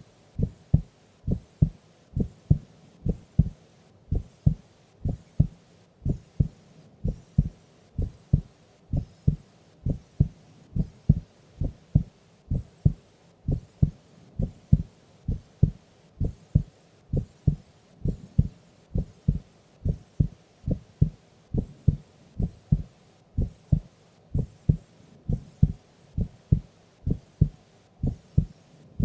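A sleeping woman's heartbeat: steady, slow lub-dub thumps, a strong beat followed by a softer one, about once a second.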